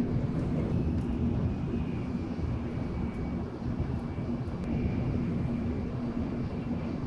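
Steady low rumble of an N700S Shinkansen cabin with a constant hum running through it, the running noise of the train as heard from inside the car.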